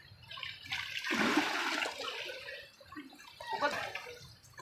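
Pool water splashing and sloshing as a child kicks his legs at the surface while holding the pool edge, loudest about a second in and dying down after a couple of seconds.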